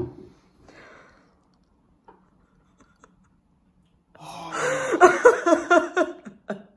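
A person's loud, excited vocal outburst about four seconds in, pitch bending up and down and broken into quick pulses like laughter, after a brief breath at the start.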